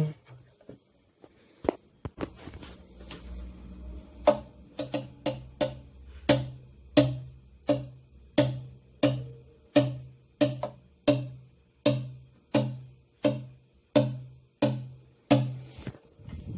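Slow, steady drumbeat of single low-pitched drum strikes, about one and a half a second. A few loose knocks come first, the beat settles in about four seconds in and stops shortly before the end.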